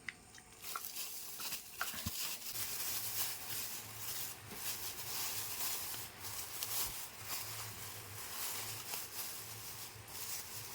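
Continuous rustling with small clicks and taps as an air cooler motor and its packaging are handled.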